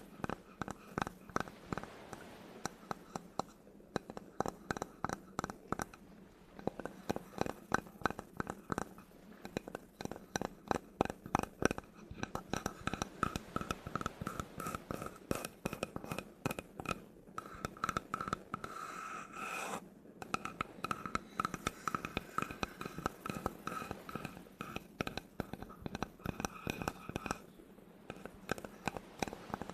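Fast tapping and scratching on a wooden surface: dense runs of sharp taps, many a second, broken by brief pauses, with a faint steady ringing tone under the middle stretch.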